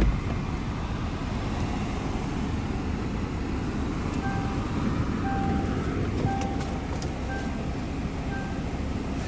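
Steady low rumble inside the cabin of a 2017 Jaguar XE with its supercharged 3.0 L V6 idling, and a short knock right at the start. About four seconds in, a dashboard warning chime starts beeping roughly once a second.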